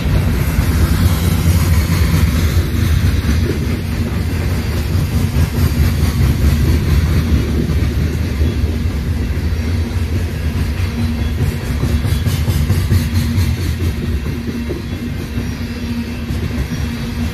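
Coal train's hopper cars rolling past close by: a steady, loud low rumble of steel wheels on rail.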